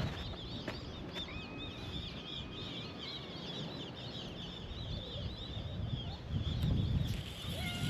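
Small birds chirping rapidly and continuously, with a cat starting to meow near the end.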